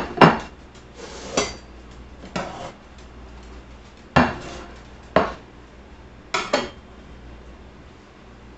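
Metal spatula clinking and scraping against a cast-iron skillet and a glass baking dish as food is served onto a plate: about six separate clinks, a second or so apart, some ringing briefly.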